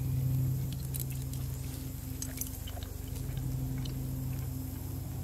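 Scattered light clicks and scrapes of a knife and fork cutting steak on a plate, with chewing, over a steady low hum.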